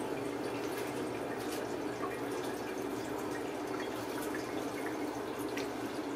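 Tap water running steadily into a tub, with scattered light drips and splashes.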